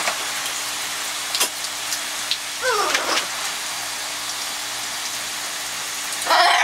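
Shower spray hissing steadily over perched macaws, with a few drip-like ticks. About three seconds in, a macaw gives a short call that swoops up and down in pitch, and near the end a louder, harsh macaw squawk.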